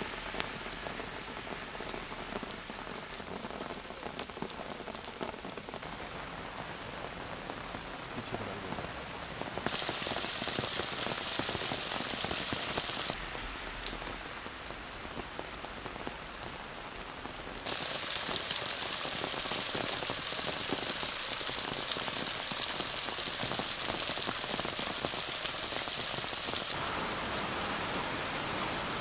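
Heavy rain pouring down, a steady hiss that steps abruptly louder about ten seconds in, drops back a few seconds later, and comes back louder from about eighteen seconds.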